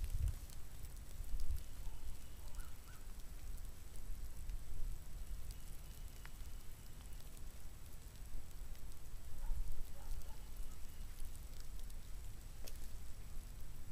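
Outdoor ambience of a man digging with a shovel in leaf litter and soil: an uneven low rumble on the microphone, with scattered faint ticks and a few brief faint chirps.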